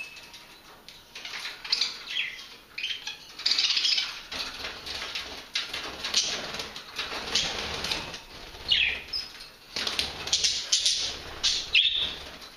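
Budgerigars squabbling: repeated bursts of wing flapping and scuffling, broken by a few short chirps that slide down in pitch.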